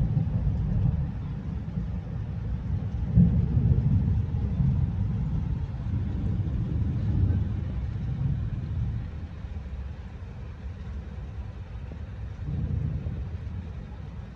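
Rolling thunder: a deep rumble that swells about three seconds in, slowly fades, then swells again briefly near the end.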